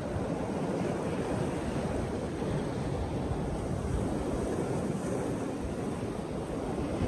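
Ocean surf washing and breaking over a rock ledge, a steady rushing wash, with wind buffeting the microphone.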